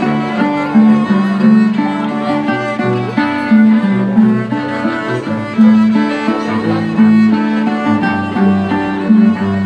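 Live violin and cello playing together: bowed chords over held low cello notes that change every second or so.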